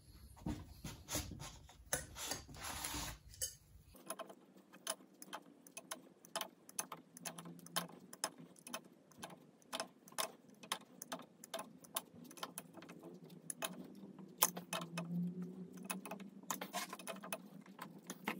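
Adjustable wrench clicking and clinking on the top cap of a RockShox Duke-C suspension fork as the cap is tightened down: many small, light metal taps in quick, irregular succession.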